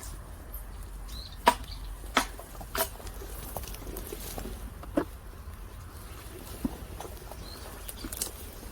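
A few irregular sharp clicks and taps, about five spread over the stretch, over a steady low rumble, with a couple of faint short high chirps.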